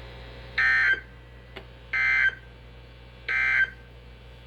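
Emergency Alert System end-of-message data tones: three short bursts of the SAME digital warble, about a second and a half apart, signalling the end of the alert.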